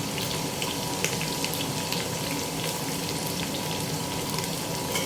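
Chopped onions and spring onions sizzling steadily in hot vegetable oil in a pan, with faint crackling.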